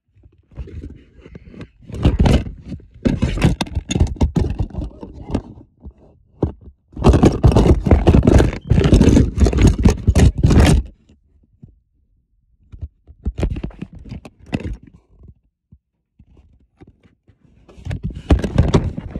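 Scraping and rubbing right against a phone's microphone, in four irregular bursts with knocks, separated by short pauses: the recording phone being jostled and dragged against a surface as it is moved.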